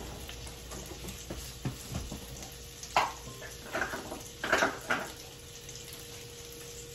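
Butter sizzling softly in a heating pan, with a few clinks and knocks of kitchen things being handled about three to five seconds in, over a faint steady hum.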